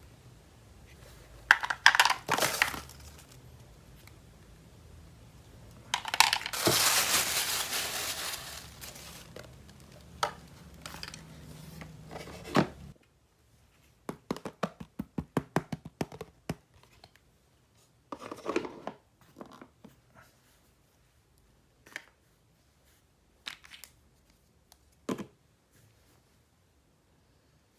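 Toy packaging being torn open and crinkled: a short crinkle about two seconds in, then a long tear about six seconds in, followed by a quick run of small clicks and a few scattered light taps.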